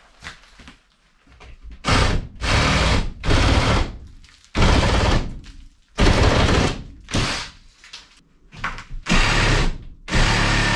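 Reciprocating saw cutting through wooden ceiling-frame battens in a run of short bursts of about half a second to a second each. The cutting starts about two seconds in.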